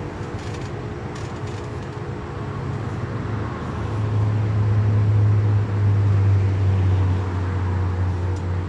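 A low, steady motor-like drone that grows louder about four seconds in and then holds.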